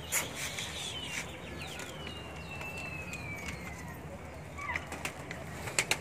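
A flock of domestic pigeons cooing, with occasional wing flaps and a few sharp clicks near the start and end. A thin whistle falls slowly in pitch for about two seconds in the middle.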